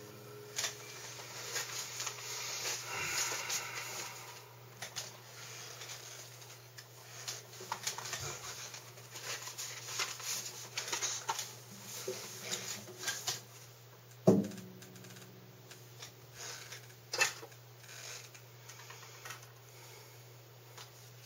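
Handling noise: scattered clicks, taps and rustling as a person moves about and handles things, over a steady low electrical hum. About fourteen seconds in comes one louder knock with a brief ring.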